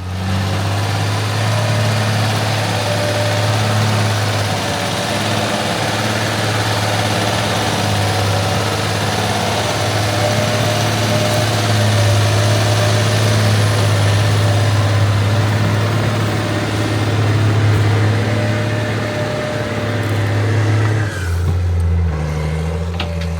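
Heavy farm machinery running steadily under load, a deep engine hum with a broad wash of mechanical noise over it. About 21 seconds in, the engine note changes to a different, lower pitch.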